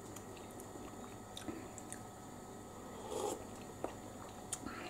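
Faint chewing and mouth sounds of a man tasting a spoonful of cabbage soup, with small clicks and one brief louder sound about three seconds in.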